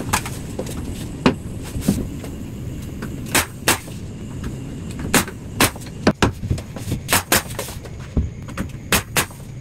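Pneumatic nail gun firing nails into a wooden door jamb: about a dozen sharp shots at uneven intervals, some in quick pairs.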